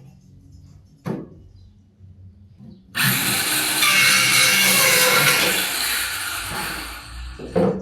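Power tool working wood: a single sharp knock about a second in, then the tool starts abruptly about three seconds in and runs loud and steady for about four and a half seconds before dying away near the end.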